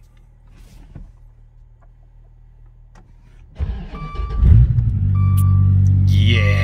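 Dodge Viper GTS's 8.4-litre V10 cold-starting after sitting all winter: quiet for a few seconds, then a short crank, a rev flare as it catches, and a settle into a steady, loud idle. A warning chime beeps in short repeats alongside.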